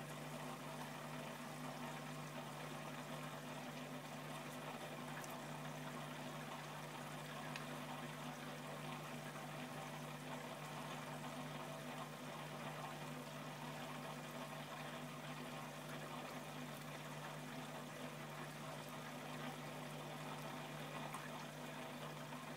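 Steady low hum with an even, water-like hiss that does not change, with no distinct events.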